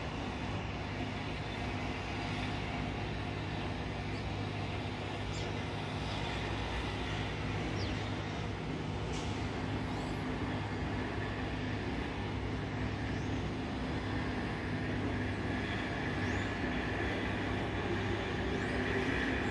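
Jet airliner engines running at taxi power: a steady low hum under a high whine that grows louder near the end.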